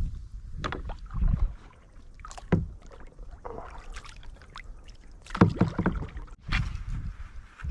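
Knocks and clatter on a kayak hull, a few scattered bumps with a cluster about five seconds in, over a low rumble.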